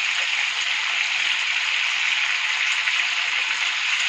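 Chicken thighs and drumsticks sizzling steadily in olive oil in a terracotta cazuela as they brown.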